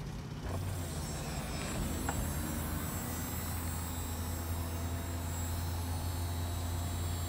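Chevrolet Camaro convertible's power soft top opening: a steady low motor hum that starts about half a second in and runs on as the roof folds back.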